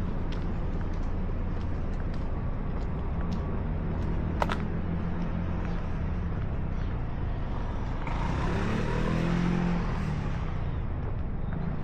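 Street traffic: a steady low engine rumble, with a motor vehicle passing close by about eight seconds in, swelling and fading over a couple of seconds. A single sharp click sounds near the middle.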